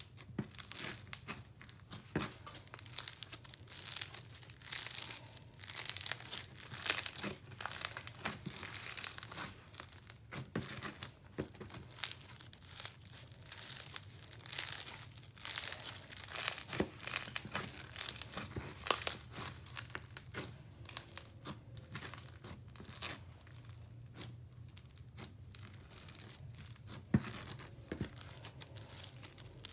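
Floam slime, foam beads in a glue base, being squeezed and stretched by hand. It gives a dense, irregular run of crackles and pops.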